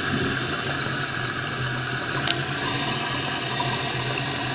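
Steady rush of water as a 2008 Kohler Kelston toilet tank refills, with one brief sharp click about halfway through.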